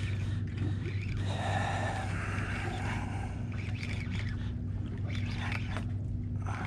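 Outboard motor idling with a steady low hum, and a few light clicks about two-thirds of the way through.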